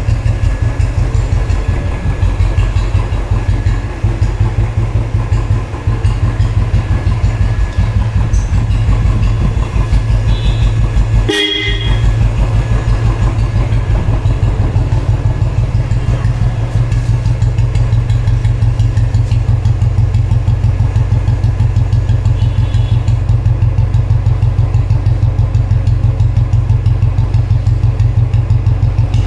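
Royal Enfield Bullet single-cylinder four-stroke engine idling through a bend-pipe exhaust fitted with a 'seeti' whistle. The exhaust gives a steady, rapid thump with a thin whistle tone over it. Once, about eleven seconds in, the beat breaks briefly.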